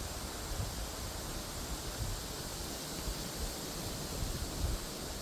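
Wind blowing over the phone's microphone: a steady hiss with irregular low rumbling gusts.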